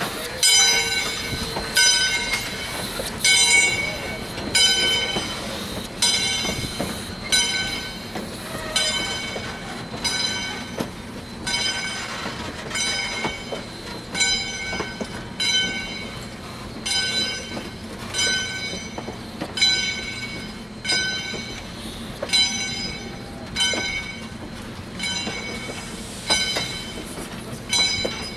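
Railroad grade-crossing warning bell ringing in an even rhythm, about three strikes every two seconds, while vintage passenger coaches roll through the crossing with a low rumble and occasional wheel clicks.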